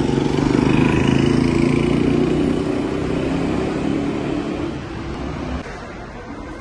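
A motor vehicle's engine running close by amid street noise, a steady low hum that fades slowly. It drops off abruptly about five and a half seconds in, leaving a quieter background.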